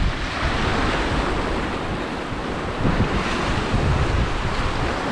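Rough sea surging and washing against the rocks, with wind buffeting the microphone in irregular low gusts.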